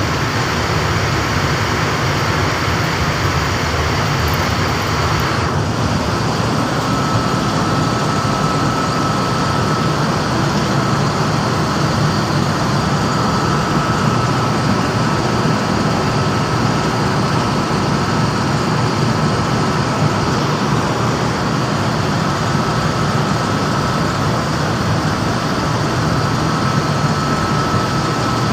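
Refrigeration service machinery running steadily and loudly. A thin high whine sets in about six seconds in and holds steady.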